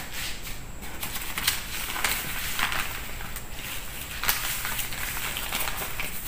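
Newspaper rustling and crinkling as a sheet holding a pile of dry crumbled noodles is lifted and folded, with the dry pieces shifting and crackling on the paper in irregular clicks.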